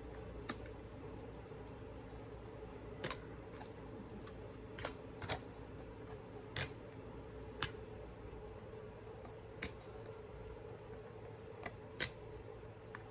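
Scattered light clicks and taps, about nine over the stretch and irregularly spaced, as a spoon or utensil knocks against the dish while banana pudding is being layered with cookies, pudding and whipped topping. A faint steady hum lies underneath.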